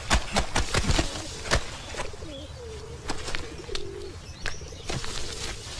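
Wet laundry being slapped and scrubbed by hand in a tub: a series of irregular wet slaps and splashes, with a low wavering cooing-like sound underneath.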